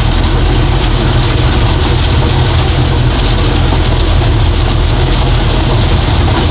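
Kubota DC-70 Pro combine harvester running steadily under load as it cuts rice lodged flat to the ground: a dense, constant machine noise from its diesel engine and header, with a strong low hum. It cuts off abruptly at the end.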